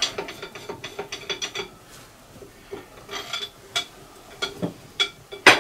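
Ratchet handle clicking in runs of short strokes as a puller is wound up on an alloy engine block to draw out a stubborn old cylinder head stud. A dense run of clicks opens, sparser clicks follow, and a single loud metal clank comes near the end.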